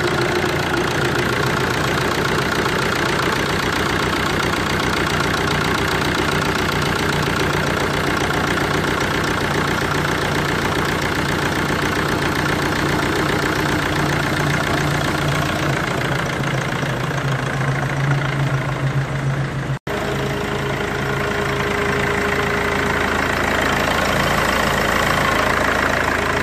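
Mercedes E220 CDI four-cylinder diesel engine idling steadily with its usual diesel clatter, freshly started after a new timing chain and chain guide; it is running perfect.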